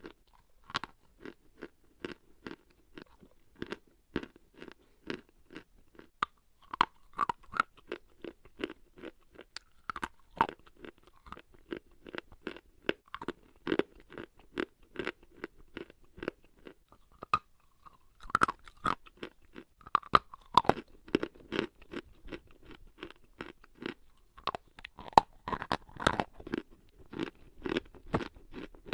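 Dry chalk being bitten and chewed, a steady run of sharp crunches, several a second.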